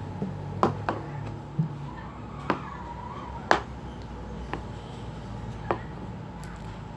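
Light knocks and clicks of small plastic containers, bottles and spoons being handled and set down on a table, about six separate knocks with the loudest in the middle, over a faint steady hum.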